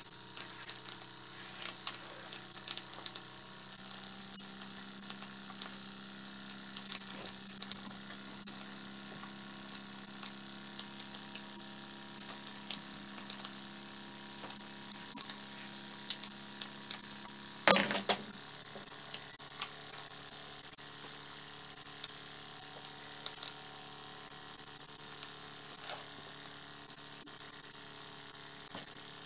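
Small vertical model steam engine with a 5/16-inch bore and stroke, running fast with a steady hum. A single sharp knock comes a little past halfway through.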